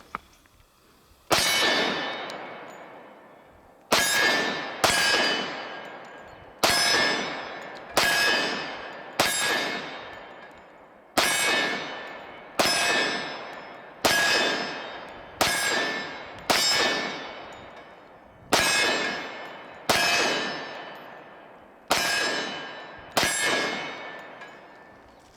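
Glock 20 10mm pistol fired fifteen times at a steady pace, a shot every one to two seconds, each shot followed by the long ringing clang of a struck steel target.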